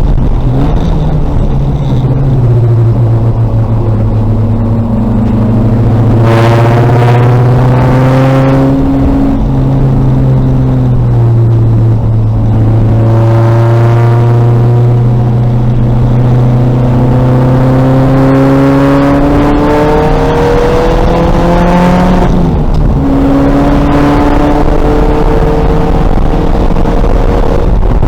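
VW Golf race car's engine under hard acceleration, its pitch climbing steadily and then dropping sharply at each upshift, a few times over.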